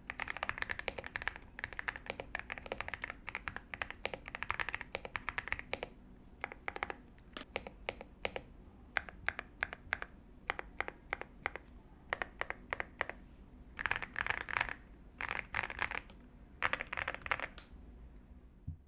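Typing on a Lingbao K98 98% mechanical keyboard, whose switches and stabilizers are lubed from the factory and which is fitted with sound-dampening foam. The keys give a loud, thocky keystroke sound. Irregular runs of quick keystrokes come with brief pauses, and there are two faster flurries near the end.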